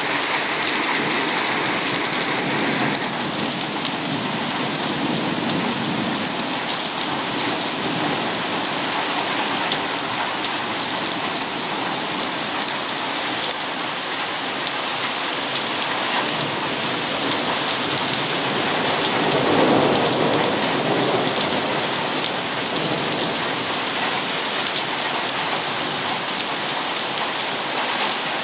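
Heavy rain pouring steadily in a thunderstorm, with a rumble of thunder swelling up about two-thirds of the way through.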